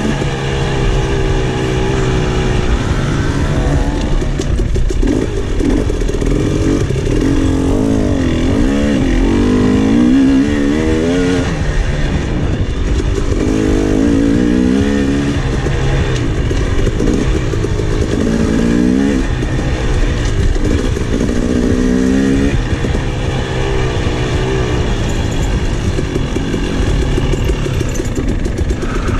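KTM 300 XC single-cylinder two-stroke dirt bike engine being ridden on a trail, revving up and falling back again and again as the throttle is worked.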